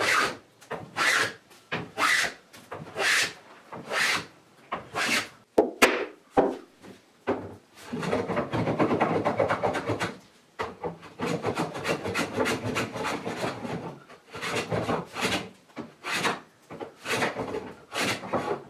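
Hand plane shaving a teak slat in repeated strokes, roughly one a second, with a longer unbroken run of cutting a little after the middle. A few sharp knocks come just before that run.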